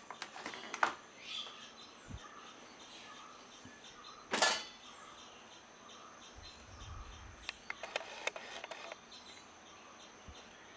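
Dishwasher door being unlatched and opened after a finished cycle: scattered light clicks and rattles, with one brief louder rushing noise about four seconds in.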